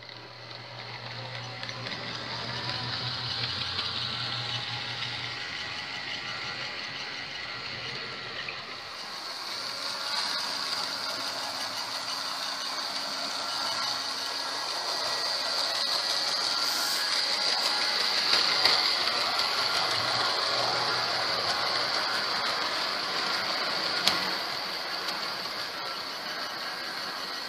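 HO-scale Life-Like 0-4-0 saddle tank locomotive's small electric motor whirring as it hauls a long train of freight cars, with the wheels of the cars rattling along the track. The sound builds up as the train gets moving at part throttle, with a sharp click about 24 seconds in.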